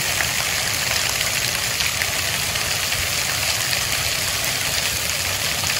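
Steady hiss of splash-pad water jets and a fountain spraying and splashing onto the ground.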